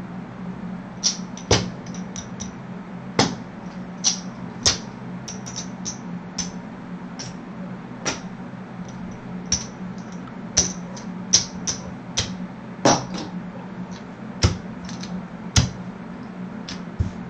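Casino chips clicking against each other as they are counted out, stacked and set down on the felt to press bets: a couple of dozen sharp clicks at an uneven pace, over a steady low hum.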